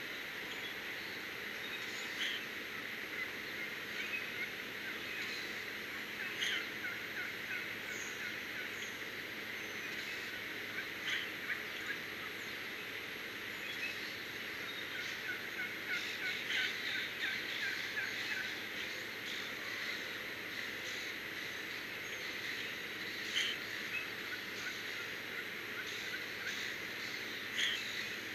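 Wild birds calling in a dawn chorus: short chirps and whistles scattered throughout over a steady outdoor hiss, with a fast run of repeated notes a little past the middle and a few sharper calls here and there.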